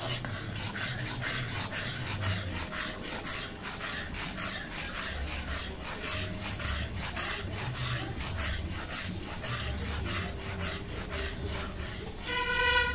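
A metal ladle stirs thick dal tadka in a metal pan, scraping the bottom in repeated strokes. Near the end a short, steady, high-pitched tone sounds.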